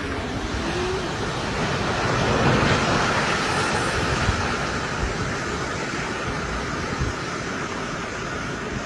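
Landslide: a steady, noisy roar of earth and debris giving way down a hillside, swelling to its loudest about two to three seconds in.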